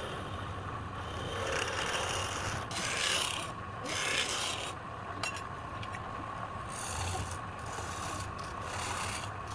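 Wood turning on a lathe: a tool scraping against the spinning wood in about six short passes, over the steady hum of the lathe motor.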